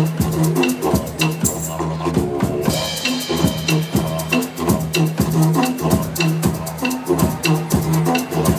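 A one-man band playing acoustic trance: a steady didgeridoo drone under a regular, repeating beat of drums and cymbal ticks.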